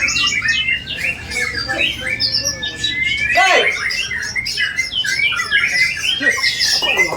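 White-rumped shama (murai batu) singing a fast, dense, varied song packed with mimicked phrases of other birds, with harsh squawk-like notes among the trills and whistles. The voice is very sharp and piercing.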